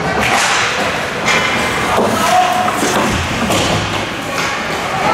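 Ice hockey play along the boards: a run of sharp thuds and knocks, about six in five seconds, from puck, sticks and players striking the boards and ice, over the steady scrape and hiss of skates.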